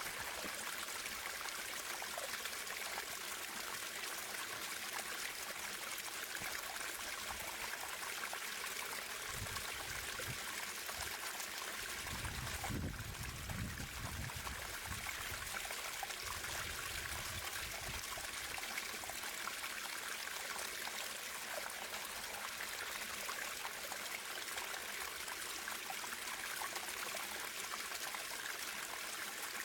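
Natural running water flowing and trickling steadily, a hiss-like rush with no pauses. A low rumble comes in partway through for several seconds.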